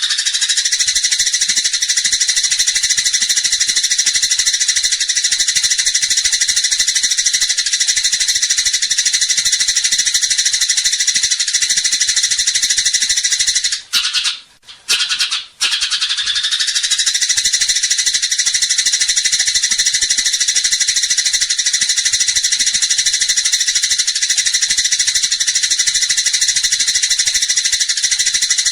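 Eurasian tree sparrows in a dense, agitated chatter of rapid high chirps, the 'fighting' calls used as a master recording for songbirds. The chatter breaks off briefly about halfway through, then comes back in.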